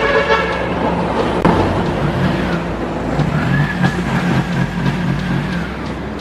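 Piaggio Ape City three-wheeler's 230cc four-stroke engine running steadily.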